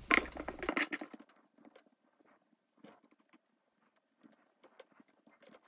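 Soft pats and light taps of a wooden utensil spreading sticky kimchi sushi rice over a nori sheet on a bamboo rolling mat. Busier in the first second, then faint scattered taps.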